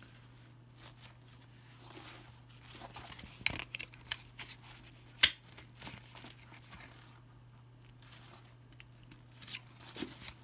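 Nylon webbing straps of a tactical bandolier rustling while their plastic buckles and slide adjusters are handled, with a few sharp clicks, the loudest about five seconds in.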